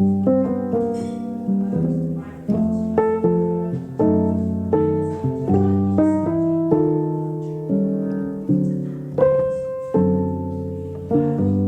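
Background music: a gentle piano piece, with notes struck at an unhurried, regular pace.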